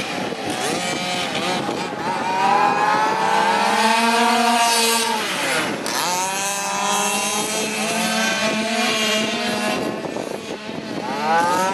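Several 1/5-scale dirt late model RC cars' small two-stroke gas engines revving up and down as they race, their pitches overlapping. About six seconds in the engines drop sharply off throttle and climb again.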